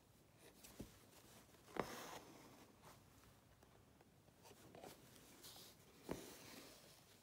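Hand embroidery on linen, faint: a few light clicks of the needle, the two louder ones followed by a short soft rasp of thread being drawn through the fabric.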